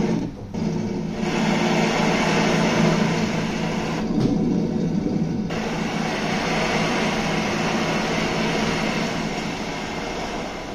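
Sound effects for a speedboat: a steady rush of spraying water over a motorboat engine's rumble. There is a short dip just after the start, and the high hiss drops out for about a second midway.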